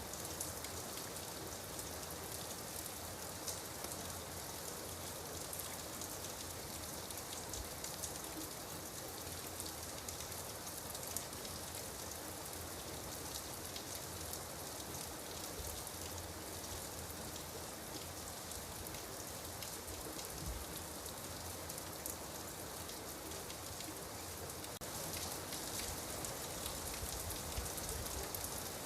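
Steady rain falling, with many small drop ticks through an even hiss. It grows a little louder and heavier near the end.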